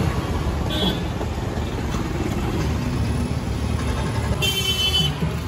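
Steady low rumble of street traffic. A short high-pitched tone sounds about a second in, and a longer, stronger one comes about four and a half seconds in.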